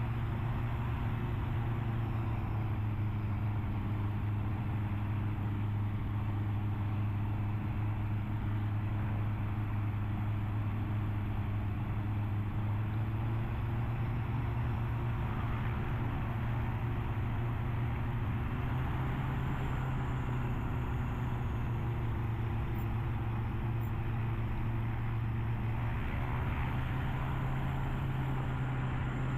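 Kitfox light aircraft's engine and propeller running steadily at low power while taxiing, the engine note stepping up a little about halfway through.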